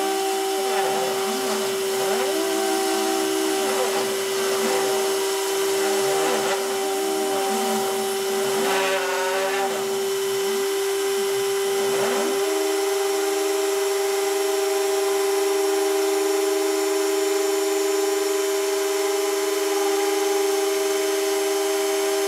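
Rotary tool spindle of a hobby C-Beam CNC router running with a steady high whine, while the machine's stepper motors whine in repeated rising and falling glides as the axes speed up and slow down. From about twelve seconds in, the stepper whine holds one steady pitch during a long continuous move.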